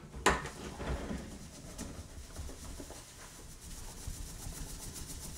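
Baking soda dropping from a balloon into a jug of vinegar with a sharp rush just after the start, then the mixture fizzing, a crackling hiss that slowly fades as the reaction gives off carbon dioxide. The balloon's rubber rubs against his hands and the jug neck as it fills.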